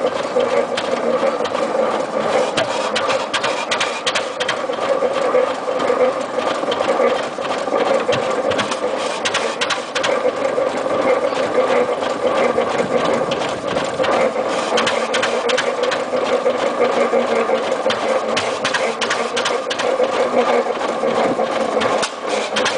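Rumely 30-60 S OilPull tractor's big two-cylinder, oil-cooled kerosene engine running steadily as the tractor drives slowly, with a rapid, even mechanical clatter.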